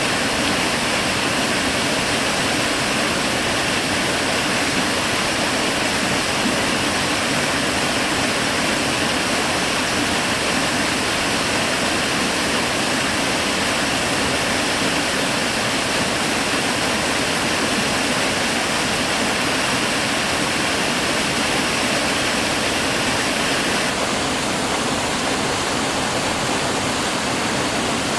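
Waterfall or fast stream water rushing steadily, with a slight change in tone near the end.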